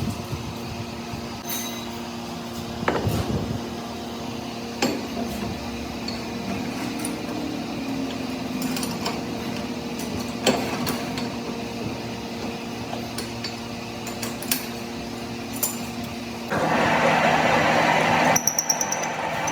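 Metal knocks and clinks of tools on steel parts, a few seconds apart, over a steady machine hum. Near the end a louder noisy stretch starts, then a fast pulsing sound with a high whine.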